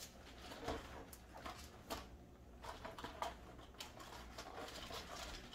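Faint rustling and a few light taps as wrapped turrón bars are handled and set into a small basket between two bottles.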